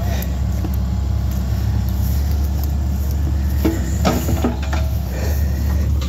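Diesel engine of a compact tracked excavator running steadily at a low, even pitch.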